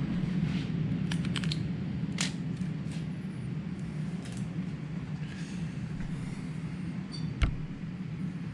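Light rustles and small clicks of hands handling the replacement display and peeling off its paper backing, with one sharper click about seven and a half seconds in, over a steady low hum.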